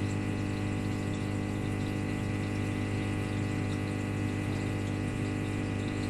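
Daewoo DW1012 washing machine's drain pump running steadily, pumping water out of a drum that still holds water: an even, uniform hum with water flowing through.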